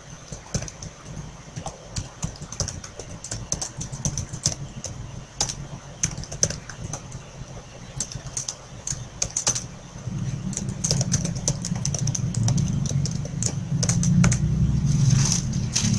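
Typing on a computer keyboard: irregular runs of key clicks as code is entered. About ten seconds in, a low steady rumble comes up underneath and grows louder.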